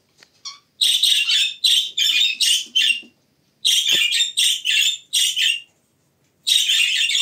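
Budgerigars calling very loudly in harsh, rapid squawking bursts: three runs of them starting about a second in, near the middle and near the end, with short silent gaps between.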